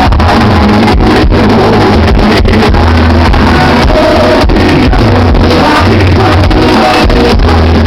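Live sertanejo concert music from the band and singers, recorded very loud, with the level pinned near maximum throughout.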